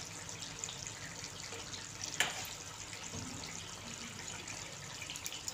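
Faint steady hiss of a chicken karahi cooking on a low flame, with a single click about two seconds in.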